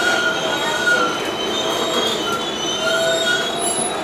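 R142A subway car's steel wheels squealing on the rails as the train runs in and slows. The squeal is a few high, steady whistling tones that fade and return over the rumble of the car.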